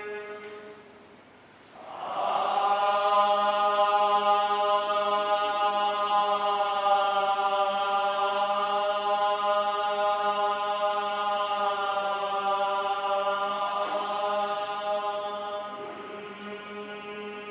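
Buddhist monks chanting in unison on one long held note. After a short pause for breath about a second in, the chant comes back louder and holds steady, easing off a little near the end.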